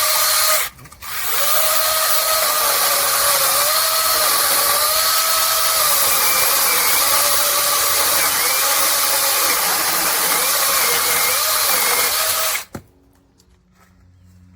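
Battery-powered handheld mini chainsaw running with a steady electric whine. It is released and restarted about a second in, then cuts with its pitch wavering slightly under load, and stops near the end.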